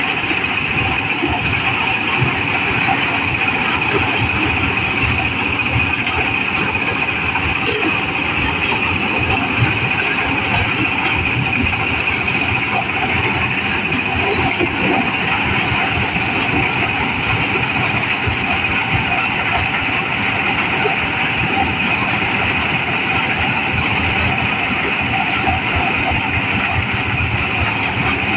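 Mobile corn sheller running steadily under load, its diesel engine and threshing drum working as whole unhusked corn ears are fed through it.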